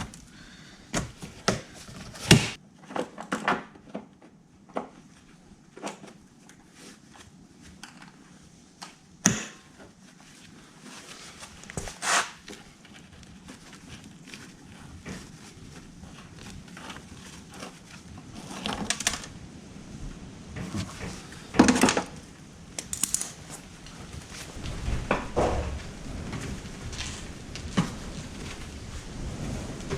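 Irregular clicks, knocks and clatter of hand tools and parts being handled during snowmobile disassembly, with several sharper knocks scattered through.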